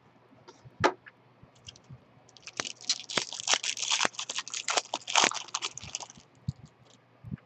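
Foil wrapper of a Topps baseball card pack being torn open and crinkled, a dense crackling from about two and a half seconds in that lasts about four seconds. A single sharp tap comes about a second in.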